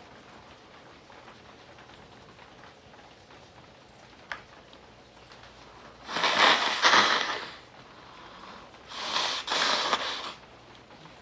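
A man blowing his nose hard twice, clearing it during a sneezing fit. Each blow is a long noisy blast of about a second and a half, the first about six seconds in and the second about a second later. A short sharp click comes a couple of seconds before the first blow.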